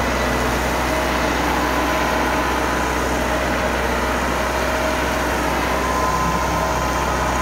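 Massey Ferguson 375 tractor's diesel engine running steadily under heavy load, pulling an overloaded sugarcane trolley hard enough that the front wheels lift off the ground.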